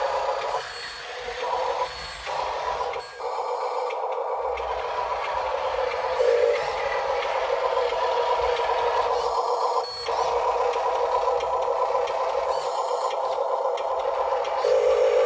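Small electric motor and metal gearing of a Huina 1582 RC dump truck whirring steadily, cutting out briefly a few times as the controls are let off.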